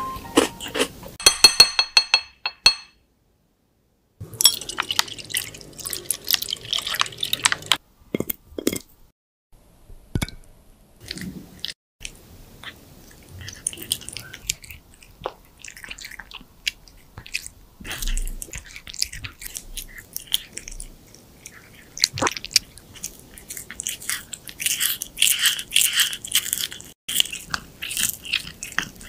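Exotic Shorthair cat chewing and biting soaked treats, with scattered clicks and wet smacks, then a quick run of crunches in the last several seconds as it bites into shrimp.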